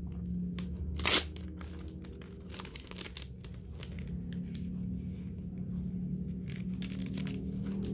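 Packaging of a merchandise set being torn open and handled: a sharp rip about a second in, then irregular crinkling and rustling.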